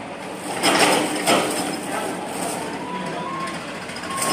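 Tractor engine driving a post-hole auger as it bores into gravelly soil, with two loud rushes of noise about a second in and a steady running hum after.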